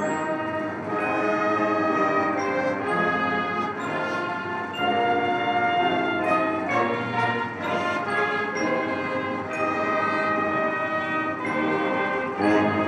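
Military brass band playing slow ceremonial music in held chords that change about once a second, played as a salute is taken.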